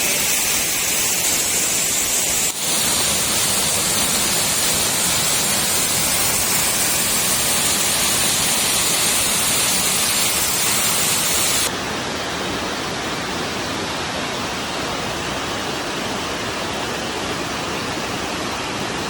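Waterfall: a steady rush of falling and splashing water. About twelve seconds in it drops a little and becomes duller, with less hiss.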